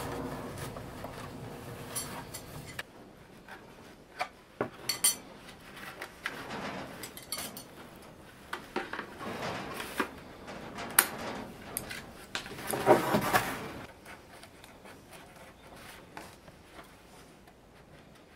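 Hand-weaving of a bamboo winnowing basket (ajiro-mi): scattered sharp clicks and light clinks of a metal hand tool, with bamboo strips rustling and clicking as they are worked through the weave. The loudest bursts come about 11 and 13 seconds in.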